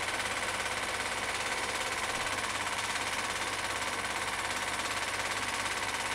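Film projector running: a steady, fast mechanical clatter with a constant hum and hiss.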